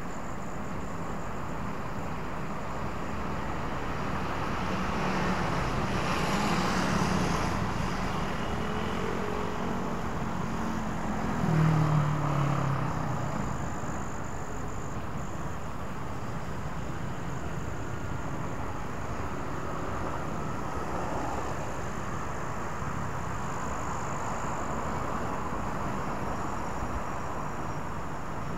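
Road traffic on a busy street: a steady rush of passing cars. It swells as a vehicle goes by a few seconds in, and a louder engine passes close by about halfway through.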